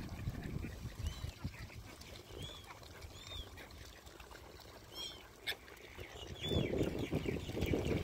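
A mixed flock of waterbirds and pigeons calling with short, high, arching chirps, several times over. There is a sharp click about five and a half seconds in, and a low rumble near the end.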